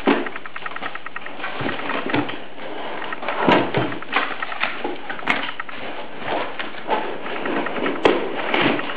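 Plastic wrapping and cardboard packaging rustling and crackling as a pressure cooker is unpacked from its box, with scattered sharp clicks and a few louder knocks.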